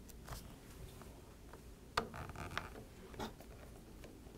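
Faint, scattered clicks and taps of a small Phillips screwdriver and tiny screws against a MacBook's case, with one sharper click about two seconds in.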